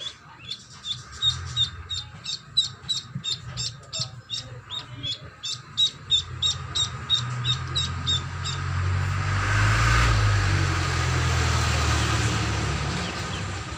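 Duckling peeping repeatedly, short high peeps at about three a second, stopping after about eight seconds. Then a broad rushing noise swells, peaks and slowly fades, over a low steady hum.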